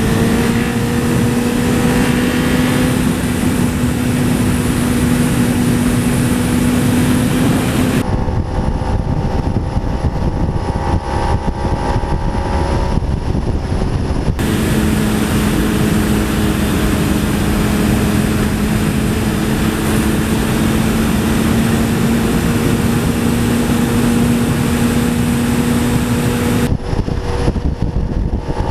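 Sport motorcycle engines running at steady revs while riding, with wind rushing over the onboard camera microphone. The sound changes abruptly three times as the footage cuts between the two bikes' cameras.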